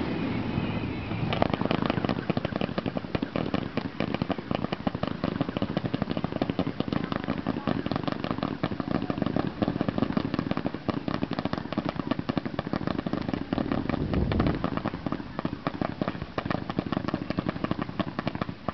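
Consumer fireworks cakes firing a rapid barrage of shots and bangs, many per second. The barrage starts about a second in and stops right at the end.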